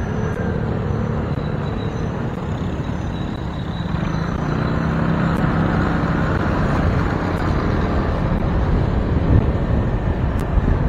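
Motorcycle riding in city traffic: engine running under steady wind and road noise on a bike-mounted camera, with an engine hum standing out from about four seconds in.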